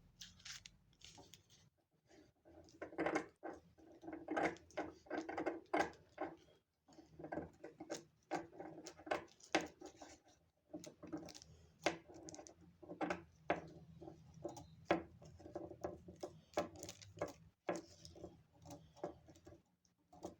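Tissue paper being handled, with many short irregular crinkles and rustles coming one after another.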